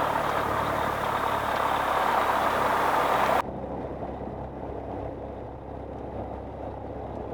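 Piper PA-28-180's four-cylinder Lycoming engine and propeller running at low power with a steady drone, heard from inside the cockpit before taxi. About three and a half seconds in, the sound abruptly turns quieter and muffled, losing all its hiss.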